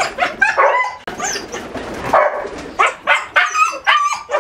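Dogs barking rapidly, a string of short barks and yips several times a second.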